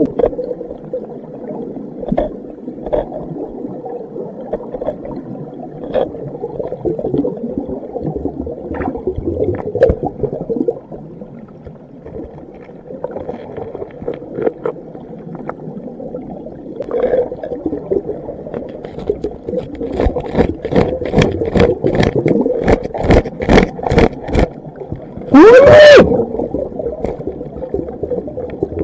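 Underwater river sound: muffled water movement with scattered clicks and scrapes against rock. A quick run of sharp clicks comes about two thirds of the way through, and near the end a single loud tone rises and then falls.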